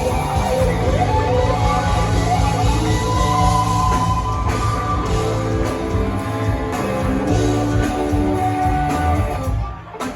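Live rock band playing, a lead guitar line held over bass and drums; the music drops off abruptly near the end.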